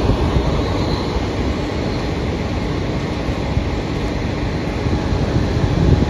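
Tail end of a container goods train rolling past on the rails: steady rumble and clatter of wagon wheels as the last flat wagons and the brake van go by.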